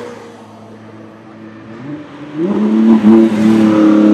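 2017 Ford GT's 3.5-litre twin-turbo EcoBoost V6 accelerating hard as the car passes. The engine runs fairly quietly at first, then about two seconds in the exhaust note jumps sharply in loudness and rises in pitch. It dips briefly and then holds a loud, steady note.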